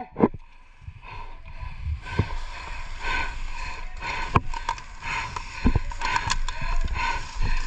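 Irregular sharp clicks and knocks, a few seconds apart, over a low steady rumble and a faint steady tone.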